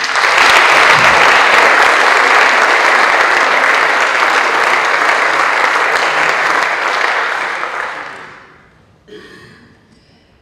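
Audience applauding, loud and steady, then dying away about eight seconds in.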